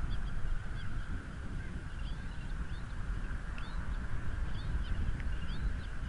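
Bald eagle chick peeping: short, thin, high chirps, scattered at first and coming more often in the second half. Under them runs a steady low rumble of blizzard wind on the nest-cam microphone.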